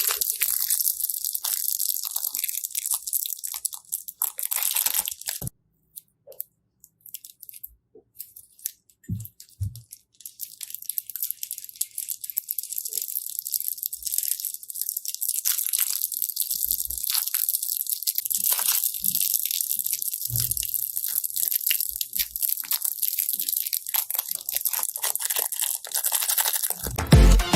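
Slime being pressed and squeezed, making a dense, fine crackling. About five seconds in it stops for several seconds, leaving only scattered small clicks, then resumes and ends with a low thump.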